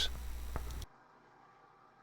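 Faint low electrical hum and background noise, cut off abruptly under a second in, leaving near silence.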